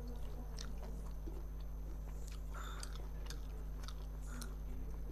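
Close-miked eating sounds of a person eating fish and rice by hand: chewing with scattered small wet clicks and smacks, over a steady low electrical hum.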